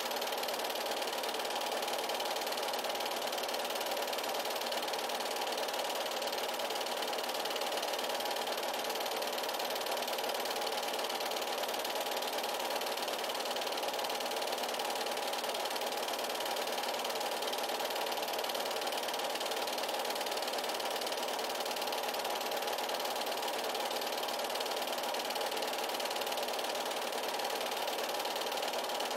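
8mm film projector running steadily, an even mechanical whir.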